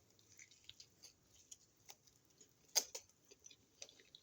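Faint, scattered mouth clicks and smacks of someone chewing food close to the microphone, with one louder click a little under three seconds in.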